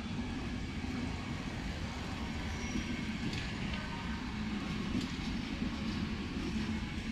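Czech Railways passenger coaches rolling past on the station track: a steady low rumble of wheels on rails, with a few sharp clicks as the wheels pass over rail joints.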